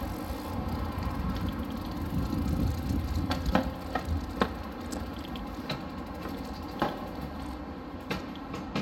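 Bicycle rolling over rough concrete: a steady low rumble with a scatter of sharp clicks and rattles, starting about three seconds in.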